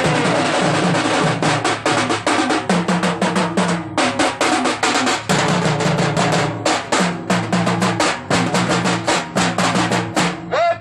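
Rapid, loud hand drumming of a festival procession, dense strokes in a driving rhythm over a low humming tone, with a short break about four seconds in.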